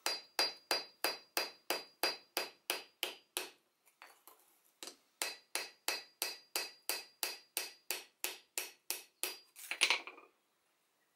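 Small hammer tapping a worn chainsaw bar's rails on an anvil in quick, light, even blows, about four a second, with a high ringing note from the steel. The peening closes up the worn groove where the chain has play. The tapping breaks off briefly about three and a half seconds in, then resumes, and a short louder noise comes near the end.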